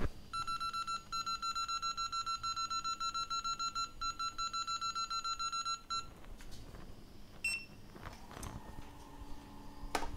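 Electronic beeper on a microsoldering bench giving a rapid pulsing beep, about seven pulses a second, for about five and a half seconds. A single short, higher beep follows a little later, then a few faint clicks.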